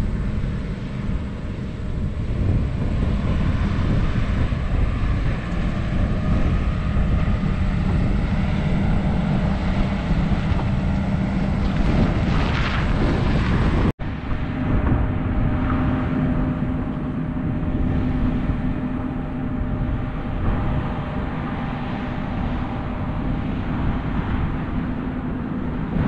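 A drone's motors and propellers humming steadily, with wind rush. After a brief break about halfway through, the hum comes back slightly higher in pitch.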